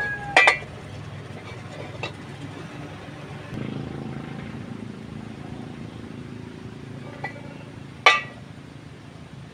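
Steel pipe sections knocking on a steel plate: two sharp metallic clinks with a short ring, one near the start and one near the end, and a couple of lighter taps between.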